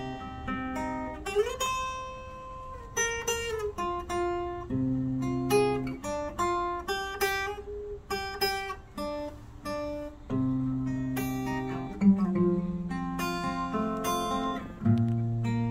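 Solo acoustic guitar playing an instrumental interlude between verses of a song, picking a melody in single notes over held bass notes, with a couple of sliding notes.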